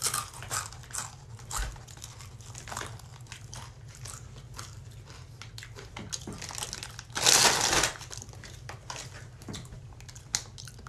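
A bag of Takis chips crinkling and rustling in a hand, in many short crackles. About seven seconds in there is one louder rustle lasting under a second.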